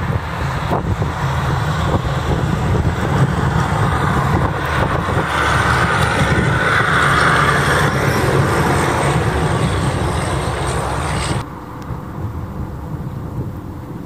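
Snowplow dump trucks passing on a highway: the diesel engine runs under the rush and scrape of the plow blade pushing and throwing snow, swelling to its loudest as a truck goes by. Near the end the sound drops suddenly to quieter vehicle noise.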